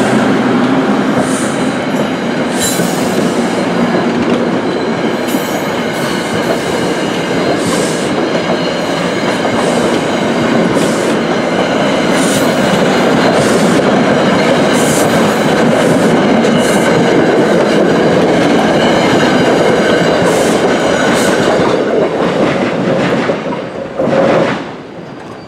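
NJ Transit single-level passenger coaches rolling past close by: a steady rumble of steel wheels on rail, with irregular clicks as the wheels cross rail joints. Near the end the sound surges briefly as the last car goes by, then drops away sharply.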